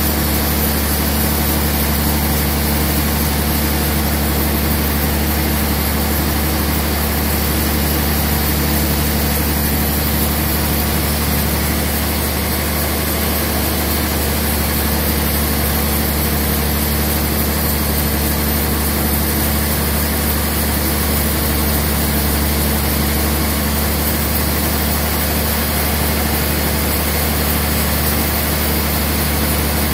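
Large band sawmill running steadily while sawing a trembesi (rain tree) log, a loud, even machine noise with a strong low hum that does not change.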